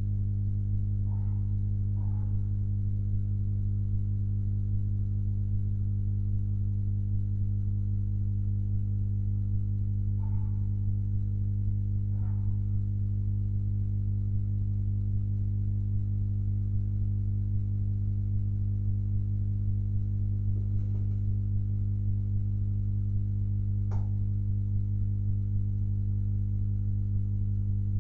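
Steady low electrical hum with a stack of overtones, even throughout. A few faint brief sounds come and go, with one sharper click about 24 seconds in.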